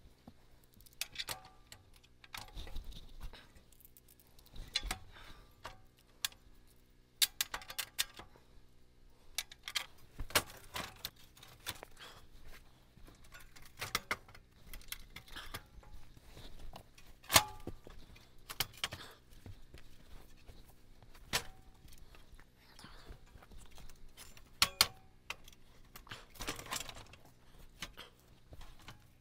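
Scattered metallic clinks and clanks as the steel track sections, bunks and bolts of a Norwood portable sawmill are handled and fitted, a few of the knocks ringing briefly.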